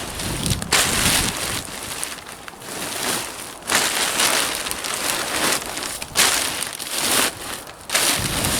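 Plastic silage sheeting crinkling and rustling in uneven swells as it is crammed into a bag.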